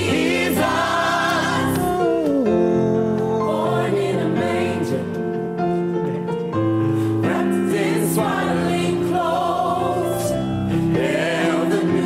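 Gospel choir singing in several-part harmony, the voices moving together in held chords.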